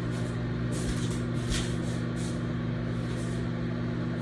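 Microwave oven running with a steady low hum while it cooks an egg in a mug.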